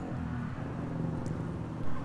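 Steady low mechanical hum, like a motor running, with a short thud near the end.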